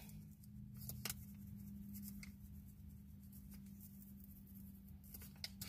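Pen writing on paper: faint scratching with a few light ticks, over a faint steady hum.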